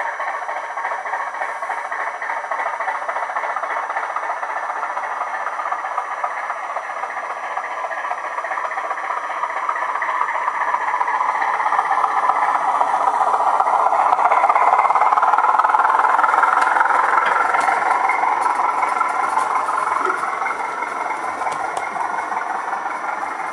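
Model Class 205 'Thumper' diesel unit running on its sound chip, the diesel engine sound mixed with wheels rattling over the rail joints. It grows louder as the unit passes close by around the middle and then fades as it moves away.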